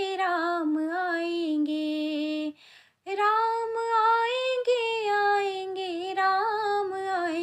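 A young girl singing a Hindi Ram bhajan unaccompanied, with long drawn-out sung notes. There is a short break for breath about two and a half seconds in, then a long held phrase.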